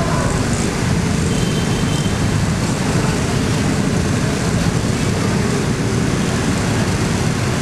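Dense, steady din of a street victory celebration: crowd noise mixed with the running of many vehicles, with a brief high tone about a second and a half in.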